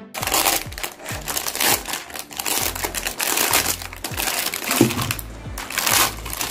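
Thin plastic packaging crinkling and rustling as hands pull open a poly bag and peel clear plastic wrap off a stack of sugarcane-fibre bowls. Background music with a beat runs underneath.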